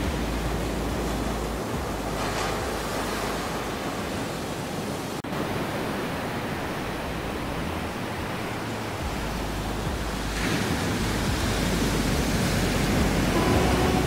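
Ocean surf washing onto a beach: a steady rushing noise that swells louder about ten seconds in.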